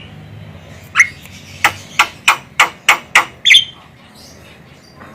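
Female Javan myna (jalak kebo) calling: one sharp note, then a quick run of six harsh clicking notes, about three a second, and a last sharp call.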